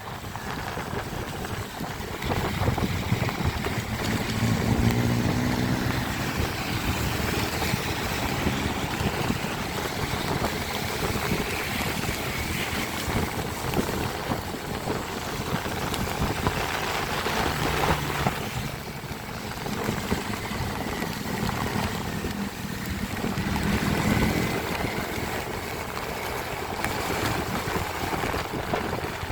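Road traffic on a wet road in the rain: engines running with the hiss of tyres on wet pavement and wind on the microphone, with engine hums swelling about four seconds in and again near the end.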